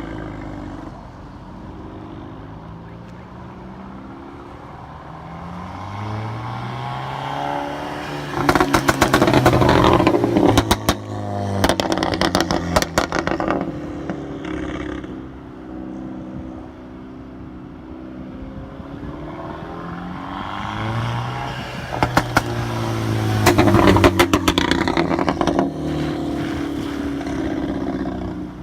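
Seat Altea Freetrack engine through an eTuners exhaust, revved up twice from idle; each time the engine note climbs and breaks into rapid runs of exhaust crackles and pops before settling back to idle.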